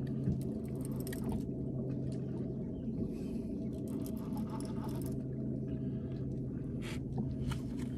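Fishing reel being cranked against a heavy blue catfish, with scattered clicks from the reel, over a steady low hum.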